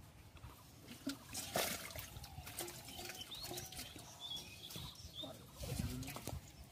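Wet squelching, slapping and small splashes of hands grabbing live eels out of mud and dropping them into bowls and a water-filled clay pot. There is one louder slap about one and a half seconds in.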